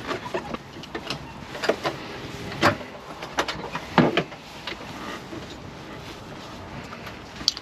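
Scattered clicks and knocks from people moving about and handling fittings in a helicopter cockpit, with the engine not running; the loudest knocks come about two and a half and four seconds in.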